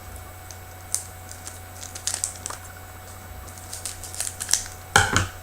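Trading cards being handled and flipped through one by one: scattered light clicks and snaps of card stock, with a louder rustle about five seconds in.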